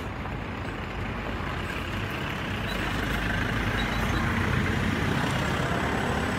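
Road traffic noise with a low rumble, a heavy vehicle growing louder from about two seconds in.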